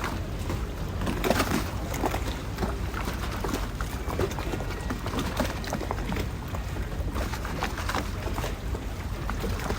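Canal water lapping and slapping against the hulls of moored gondolas: irregular small splashes and knocks over a steady low rumble.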